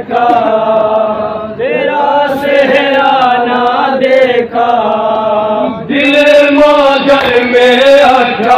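Men chanting a nauha, a Shia Muharram lament, unaccompanied over microphones, in long held, wavering lines. From about six seconds in the chanting grows louder and fuller.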